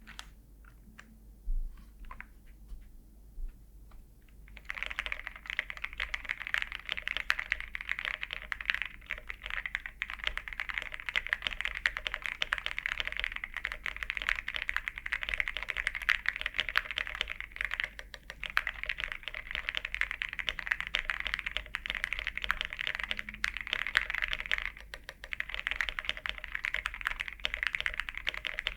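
Sound test of a JRIS80 TKL custom mechanical keyboard with lubed and filmed SP-Star Meteor White switches, MT3 double-shot ABS keycaps, a polycarbonate plate and all foams installed. A few scattered keystrokes, then continuous fast typing from about four and a half seconds in, with two brief pauses. The sound is a little too clacky.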